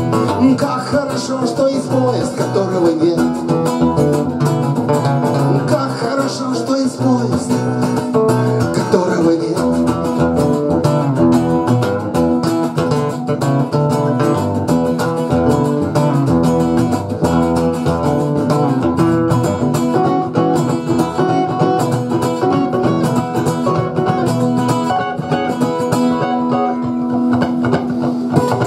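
Two acoustic guitars playing together without vocals, the instrumental outro of a song.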